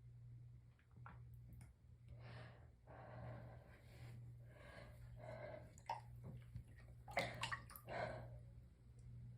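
A person's soft breaths and sniffs while building up to a sneeze, with a few short, sharp sounds about seven seconds in, over a low steady hum.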